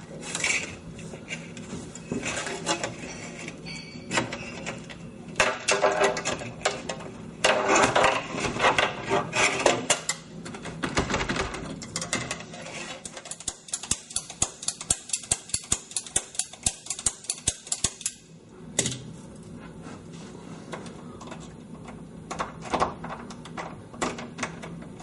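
A locksmith's tools working a house door lock: metallic scraping, rattling and clicking, with a steady run of quick clicks, about three a second, for several seconds past the middle.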